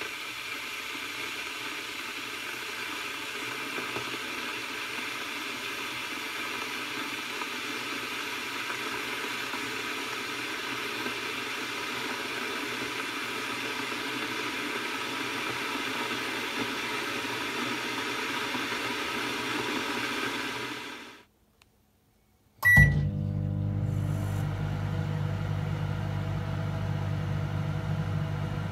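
Electric kettle heating water, a steady rushing hiss that grows slowly louder. It stops abruptly about 21 seconds in. After a short beep, a microwave oven starts running with a steady low hum.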